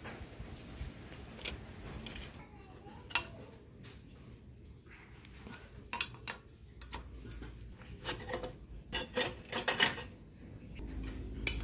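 Hand wrenches clinking on a steel bicycle's handlebar and stem clamp bolts: scattered sharp metal clicks, crowding into a quick run of clinks in the last few seconds.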